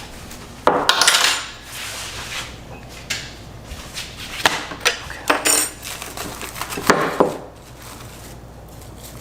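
Dishes and cutlery clattering as food is prepared: plates and utensils knocked and scraped in a few separate bursts, the loudest about a second in and about seven seconds in.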